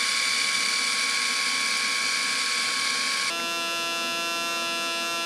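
A Philips SensoTouch rotary electric shaver running with a steady hissing whir. About three seconds in, it cuts to a Panasonic ES-RT37 foil shaver running with a steady buzz from its vibrating cutter mechanism.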